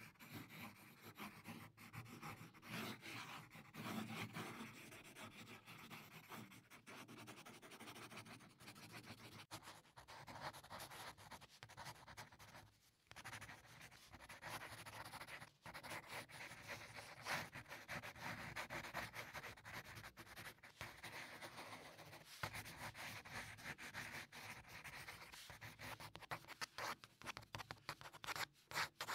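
Pencil strokes scratching on drawing paper: faint, irregular short strokes with brief pauses, as fine detail is sketched in.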